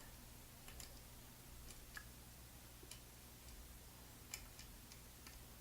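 Faint, irregular small metal clicks from lock picking tools working in an ASSA Twin Combi high-security lock, one sharper click about four and a half seconds in, over a low steady hum.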